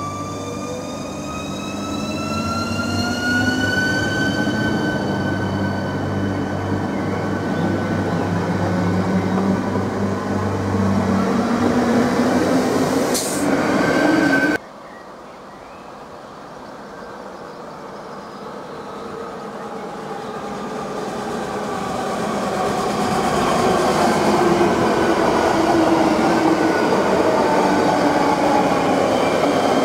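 Škoda RegioPanter electric multiple unit pulling away: its traction motors whine, rising in pitch over the first few seconds as it accelerates, then holding steady over the wheel and running rumble. About halfway through the sound cuts off abruptly, and the noise of another electric train builds up as it approaches and runs past, loud with rushing wheel noise and a falling whine.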